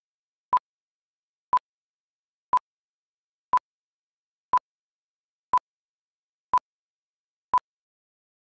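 Short electronic beeps at one steady pitch, one a second, eight in a row, with dead silence between them.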